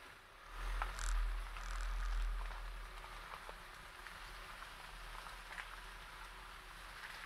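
Tyres of a slow-moving Ford Kuga rolling over a stony dirt track: scattered small ticks and cracks of gravel and pebbles under the tyres, over a low rumble that swells for a couple of seconds near the start and then settles.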